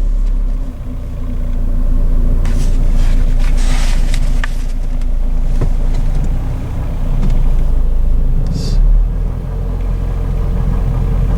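1989 Honda Accord's four-cylinder engine idling with a deep rattling, metallic tapping knock, which was traced to a failing water pump pulley; the owner had feared a rod going out.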